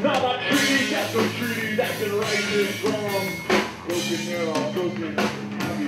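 Live rock band playing: distorted electric guitar, bass and drum kit with sharp drum hits, and a voice singing over them.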